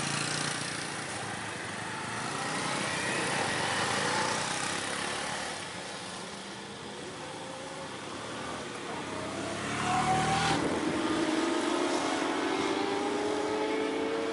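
Motor vehicle engines running on a road, with motorcycles passing a safari jeep. About two-thirds of the way through it gets louder and one engine rises steadily in pitch as it speeds up.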